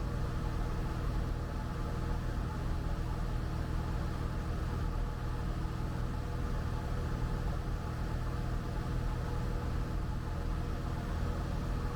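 Cessna Skyhawk 172's piston engine and propeller droning steadily in cruise flight, heard from inside the cabin.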